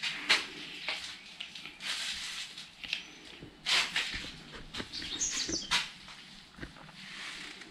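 Footsteps and clothing rustle on a gritty earthen floor, coming as irregular scuffs and knocks, with a short high chirp about five seconds in.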